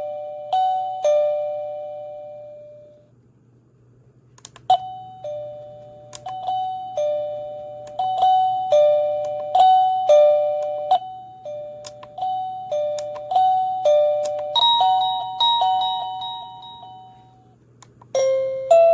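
Wireless caregiver pager's plug-in receiver playing electronic doorbell chime tunes: a run of two-note ding-dong chimes, a short lull, then more ding-dongs. Near the end it switches to a different, higher tune and, after a brief gap, starts another.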